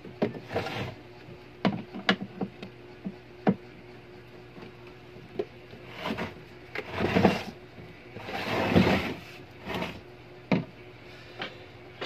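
Handling noises: scattered sharp clicks and knocks, then two longer rustles of packaging about six and eight seconds in, over a faint steady hum.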